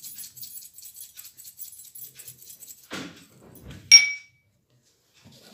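Light scraping and ticking of a metal spoon in a dry flour mixture in a ceramic bowl, then a single ringing clink of metal on ceramic about four seconds in.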